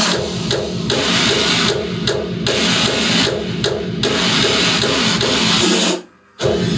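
Music with drums and guitar played from a vinyl record on a DJ turntable, cutting out abruptly for under half a second about six seconds in, then coming straight back.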